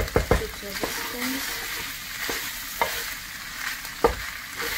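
Boiled beef tripe and onions sizzling in oil in a frying pan while a wooden spoon stirs them, knocking against the pan several times, loudest near the start and about four seconds in.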